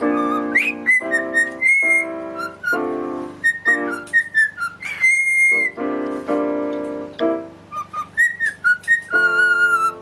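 Piano playing a run of chords while a cockatiel whistles a melody along with it, its whistle sliding from note to note above the piano.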